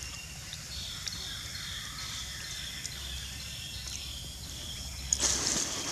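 Steady high-pitched calling of insects in the surrounding vegetation. A little after five seconds a sharp click and a sudden rush of noise, the loudest moment, break in.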